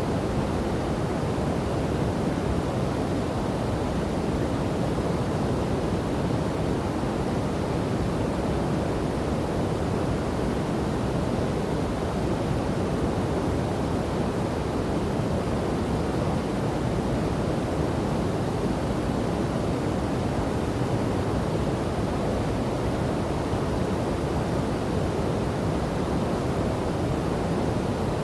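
Steady rushing of a waterfall and river: a constant, even roar of falling and flowing water, deepest in the low range, with no breaks.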